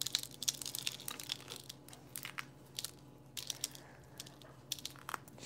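Eggshell crushed and crumbled between the fingertips: an irregular run of small, sharp crunches and crackles.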